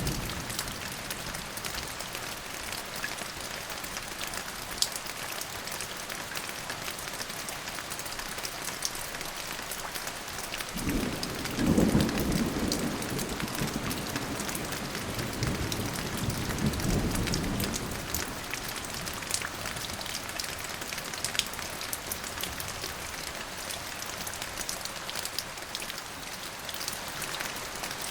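Steady heavy rain falling, with scattered drip ticks, and a long roll of thunder that rises about eleven seconds in, peaks soon after, and rumbles on for about seven seconds before fading.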